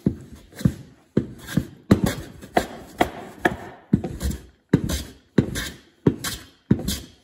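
Metal hand plane taking quick, short strokes along a wooden framing board, about two a second, each a sharp bite into the wood trailing off into a shaving hiss. The strokes work the ends of the board to plane out a slight crown.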